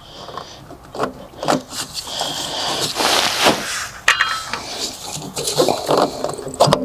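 Irregular scrapes, knocks and clinks of metal parts as the fuel filter is worked loose by hand on a John Deere 450J crawler dozer. A short metallic ring comes about four seconds in.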